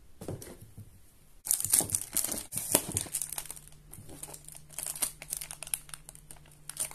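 Thin clear plastic bag crinkling and crackling as hands handle and turn it. A few soft knocks come first, and the dense crinkling starts about a second and a half in.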